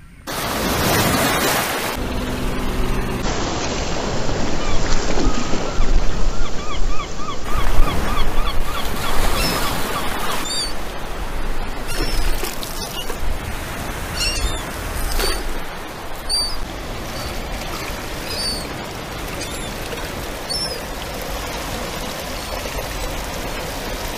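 Surf washing steadily on a sandy beach, with short high bird calls repeating through the second half. Water splashes and pours as a perforated bait-bucket insert is dunked and lifted out of its bucket.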